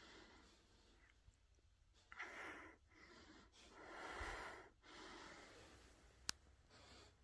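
A Border Collie breathing hard during a grand mal seizure episode: a run of slow, noisy breaths about a second apart, faint at first and louder from about two seconds in. A single sharp click near the end.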